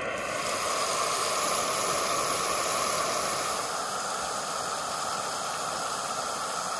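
Fish chunks deep-frying in hot oil in a pan on a canister camp stove: a steady sizzle mixed with the hiss of the gas burner.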